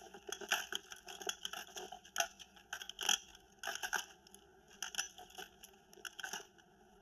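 Guns being dropped one after another: a string of irregular clattering clicks and knocks over about six seconds.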